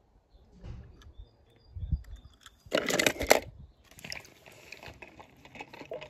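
Loose stones crunching as they are shifted, with a few soft thumps and then one loud crunch about three seconds in, followed by lighter rustling.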